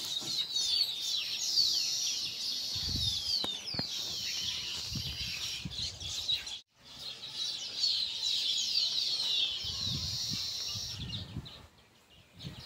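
Many small birds chirping together in a busy chorus of quick, falling chirps, with occasional low rumbles underneath. The sound cuts out for a moment about seven seconds in, and the chirping thins out near the end.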